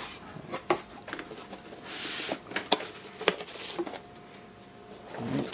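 Cardboard box and foam packing being handled as the foam sheet is lifted out: rustling with several sharp taps and clicks.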